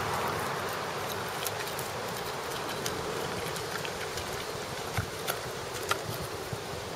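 A puppy biting and chewing dandelion flowers, with a few sharp crunching clicks about five to six seconds in, over a steady background hum.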